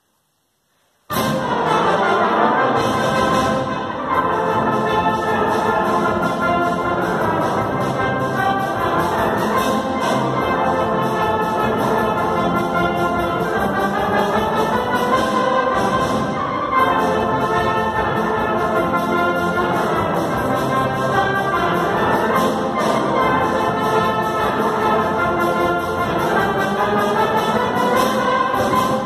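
Brass band playing a piece, starting abruptly about a second in after near silence, with trombones and low brass in the full ensemble.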